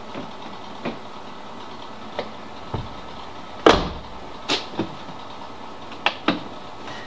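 Sheet-metal repair patch being handled and fitted against a car's rear wheel arch: about nine scattered metal knocks and clanks, the loudest a little past halfway with a short ring after it.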